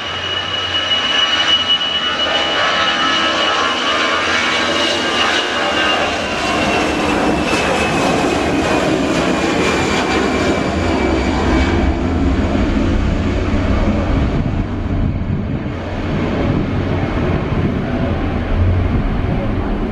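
Citilink Airbus A320's twin jet engines at takeoff power during the takeoff roll: steady, loud jet noise with a high fan whine that slowly falls in pitch. The whine fades about twelve seconds in, leaving a deep rumble.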